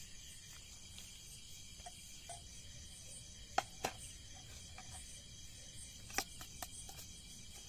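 Metal spoon clinking against a steel plate a few times, two clinks close together midway and another near the end, over a steady chorus of night insects such as crickets.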